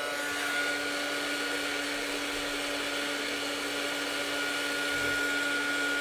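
Handheld craft heat tool running steadily, its fan motor humming with a high whine over the rush of hot air, used to dry freshly wetted paper flowers.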